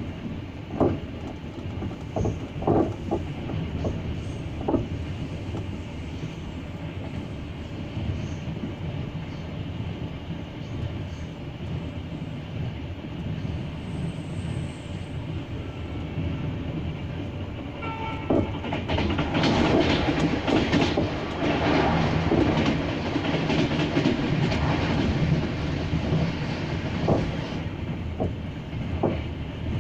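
Double-decker passenger train running at speed: steady rolling noise with sharp clacks of the wheels over rail joints. The running gets louder and rougher about two-thirds through for several seconds, then eases back to steady clacking.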